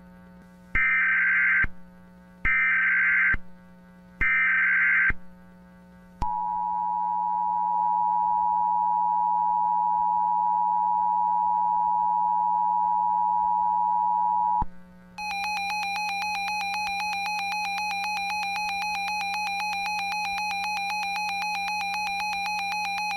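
Emergency Alert System signalling: three short screeching data bursts of the SAME header, then the steady two-tone EAS attention signal (853 and 960 Hz) held for about eight seconds, then a harsher, rapidly pulsing buzzy alarm tone for about eight more seconds. A low steady hum lies under it all.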